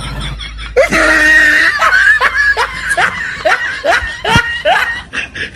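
A man laughing loudly: one long held note about a second in, then a run of short ha-ha pulses, about three a second.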